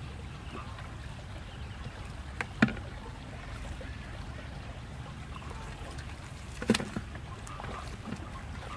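A wire-mesh fish trap shaken and emptied over a plastic bucket: two sharp knocks, about two and a half seconds in and again about four seconds later, over a steady low rumble.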